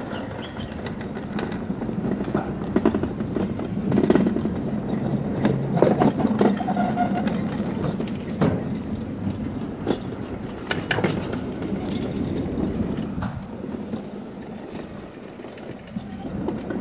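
Summer toboggan sled rattling and clattering in its metal chute while being hauled uphill by the tow, a steady rumble broken by many irregular clicks and knocks.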